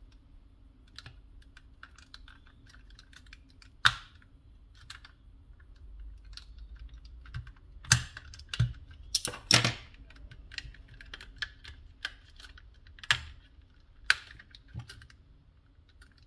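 Sharp plastic clicks, about six spaced over several seconds, with faint scraping between them, as a small tool pries at the clip-together plastic shell of a Microsoft Wireless Mobile Mouse 3500.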